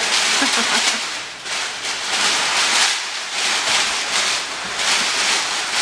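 Brown kraft packing paper crinkling and rustling in repeated bursts as handfuls are pulled out of a cardboard shipping box.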